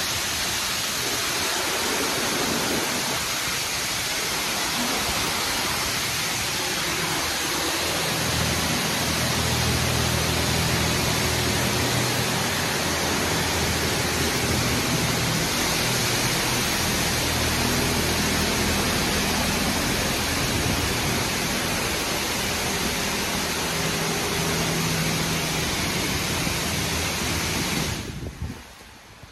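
PDQ LaserWash 4000 touchless car wash spraying high-pressure water over the car in a steady, loud hiss. A low steady machine hum joins about eight seconds in, and the spray cuts off suddenly near the end.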